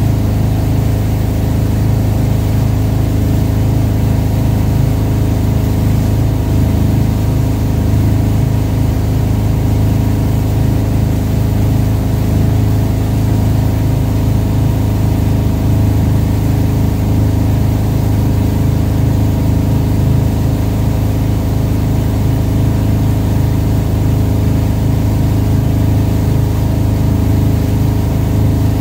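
Wake boat's inboard engine running steadily at wake-surfing speed: a constant drone of evenly spaced tones, heard from the stern over a steady hiss of churning wake water.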